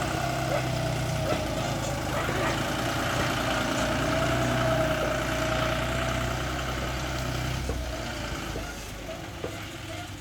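Bulldozer's diesel engine running steadily with a wavering whine over it, the engine sound dropping away about eight seconds in.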